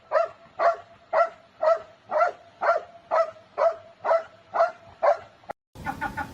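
A small dog barking in a steady rhythm, about two short barks a second, a dozen in all, stopping abruptly near the end.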